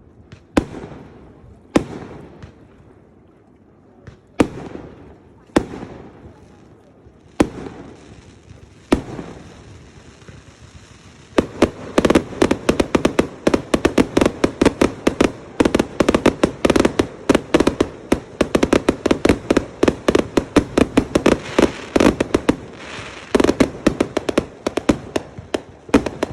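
Fireworks going off: single sharp bangs about every second and a half, each trailing off in an echo. About halfway through they give way to a dense, rapid run of crackling pops, like a string of firecrackers, that keeps going.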